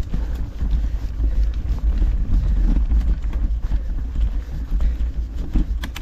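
Wind buffeting the microphone in a steady low rumble, with frequent short knocks and rattles from a mountain bike riding over rough trail.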